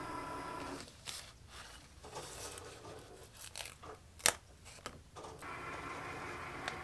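Small paper stickers being peeled off their backing sheet and handled: irregular crinkling, rustling and peeling, with one sharp click a little past four seconds in.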